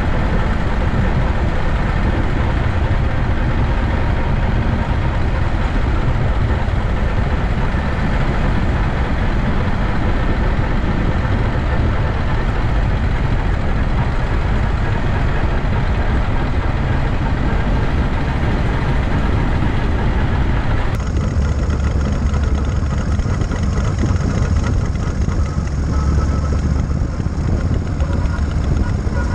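Matchless Model X motorcycle engine running steadily on the move, heavy in the low end with a rushing haze over it. About two-thirds of the way through the sound changes abruptly, the low end growing stronger and a few steady tones appearing.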